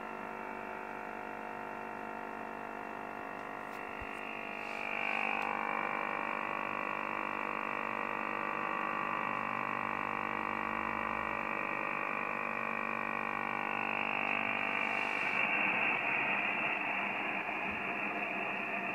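Receiver audio from a Yaesu FT-1000MP Mark-V Field HF transceiver in USB on 21.076 MHz, carrying strong interference (QRM): a dense mass of many steady tones and hiss, cut off above about 3 kHz. It gets louder about five seconds in and again near the end. The interference is of unknown origin, and the operator wonders whether it is military.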